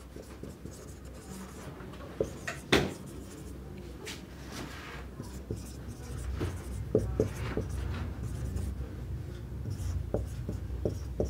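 Marker writing on a whiteboard: a run of short strokes and light taps, with one sharper tap about three seconds in.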